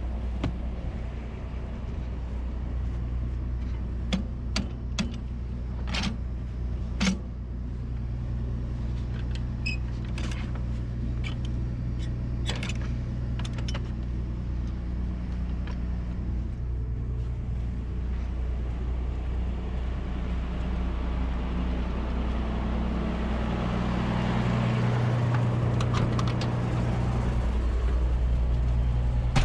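MB Trac 1600's six-cylinder turbo diesel running steadily under way, heard from inside the cab with the roof hatch open. Sharp knocks and rattles come through the first half, and near the end the engine gets louder as its note shifts.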